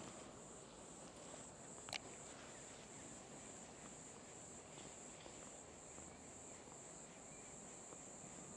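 Faint, steady high chirring of night insects, with one sharp click about two seconds in.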